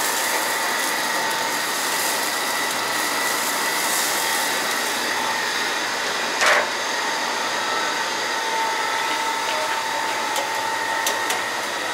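Steady blowing, hair-dryer-like machine noise with a faint steady hum, and a single short knock about six and a half seconds in.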